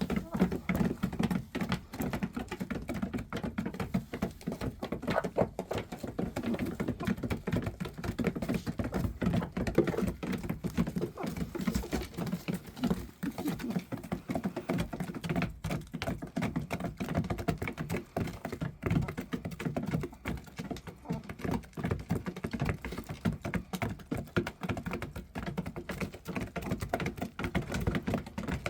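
Small animals eating noisily: a continuous, rapid crunching and chewing patter of many small clicks.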